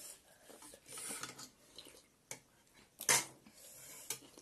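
Spoons and forks clinking and scraping against bowls of noodle soup while eating, a few sharp clinks with the loudest about three seconds in.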